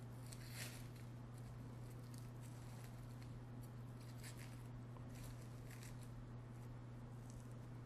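Faint, scattered papery crackles of dry red onion skin being peeled off by hand, over a steady low hum.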